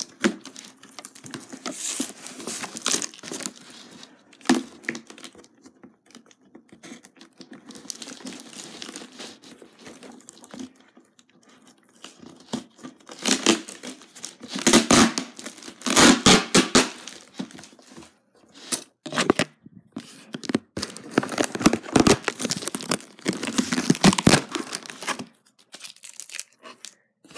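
Packaging being torn and crinkled by hand as a package is opened, in irregular bursts of rustling and ripping, loudest in clusters around the middle and near the end.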